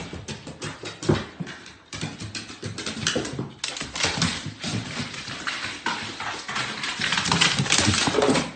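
A dog's paws and claws clattering on hardwood stairs as it scrambles down the steps: a fast, uneven run of taps and knocks.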